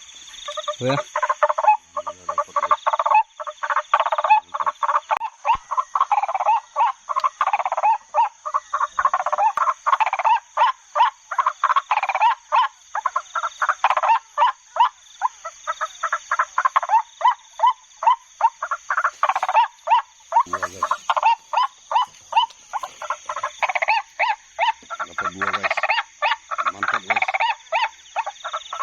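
White-breasted waterhen lure call played from an MP3: a fast, unbroken run of croaking 'kwak' notes, several a second, used to draw the birds into the net. A few soft low thuds come through around a second, two seconds and twenty seconds in.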